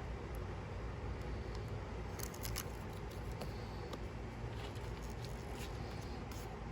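A few faint, small clicks and light handling noises, with a short cluster about two seconds in and another near the end, over a steady low background rumble.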